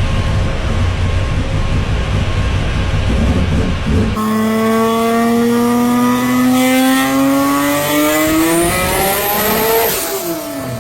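A loud low rumble, then after an abrupt change about four seconds in, a Mk4 Toyota Supra's 2JZ straight-six accelerating hard. Its pitch rises steadily for about six seconds, then drops sharply near the end.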